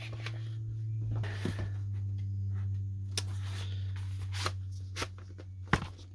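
Handling of vinyl records and their paper sleeves: scattered rustling and light taps, with one sharper knock near the end, over a steady low hum.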